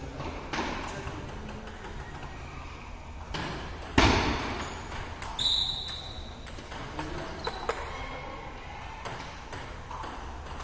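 Ping-pong balls clicking off paddles, table and the tiled floor, in scattered single knocks echoing in a large hall, the loudest sharp knock about four seconds in. A short high squeak follows about a second later.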